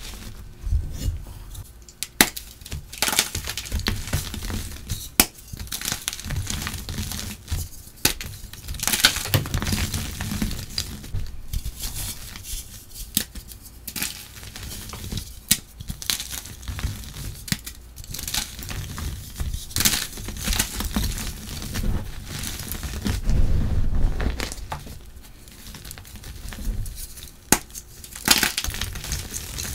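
Glassy mute blocks of gym chalk, dusted with charcoal, being snapped and crumbled by hand. Crisp snaps and crunches come in an uneven run, with powdery crumbling between them.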